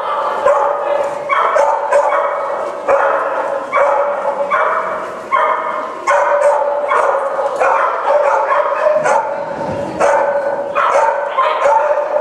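A dog barking over and over, about two barks a second, with no real break, each bark on much the same pitch.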